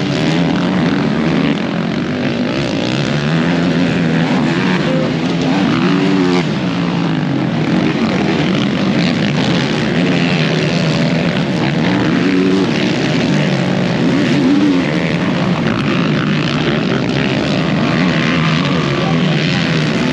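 Several racing ATV engines revving on a motocross track, their overlapping pitches rising and falling over and over.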